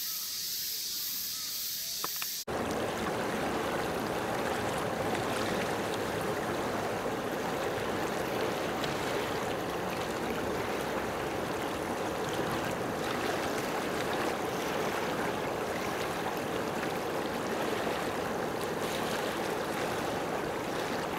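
A high, even hiss for about two seconds, then an abrupt cut to a steady rush of water with waves washing, unchanged to the end.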